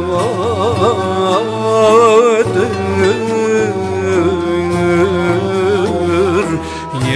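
Turkish Sufi devotional song (ilahi): a heavily ornamented melody line with quick wavering turns over sustained low tones.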